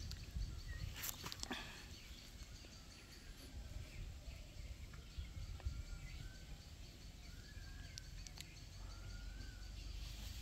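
Quiet outdoor ambience: a steady low rumble with a few short, faint bird calls in the second half, and a couple of brief rustling clicks about a second in.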